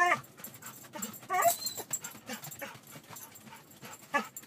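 A dog whining and yelping: one short cry at the start and another about a second and a half in, with soft knocks and rustling of the dog moving about between them.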